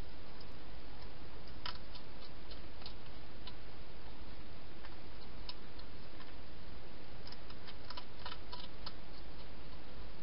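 A wild hedgehog eating inside a plastic feeding box: scattered sharp clicks and crunches, irregular and bunched about two seconds in and again between about seven and nine seconds, over a steady hiss.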